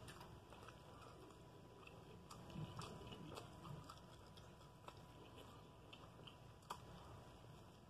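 Faint chewing and biting of a soft Italian beef sandwich on French bread, with scattered soft mouth clicks, the sharpest about three-quarters of the way through.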